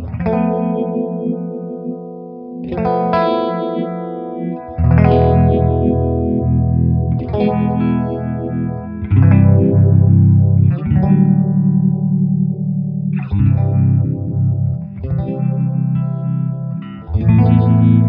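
Electric guitar strumming chords through a Mattoverse Just A Phase phaser pedal, with a chord struck every two seconds or so and left to ring under the sweeping phase effect.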